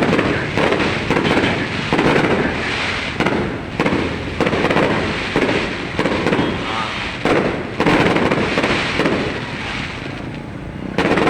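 Fireworks display going off: a rapid, continuous run of bangs and crackling bursts, several a second and often overlapping.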